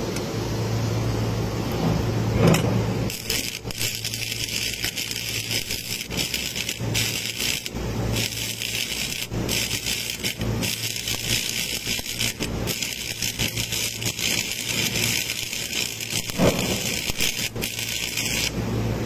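Electric arc welding on the metal underside of a reefer container's gooseneck tunnel: the arc crackles and hisses steadily from about three seconds in, with a few brief breaks, and cuts off shortly before the end.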